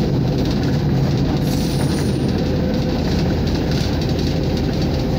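Steady running noise inside a ČSD M262.1 diesel railcar under way: a dense, even rumble from the engine and the wheels on the rails, with a steady hum running through it.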